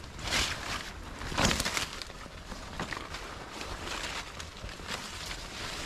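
Footsteps and rustling through leafy undergrowth and dead-leaf litter, with two louder brushes, one just after the start and one about a second and a half in, over a steady hiss.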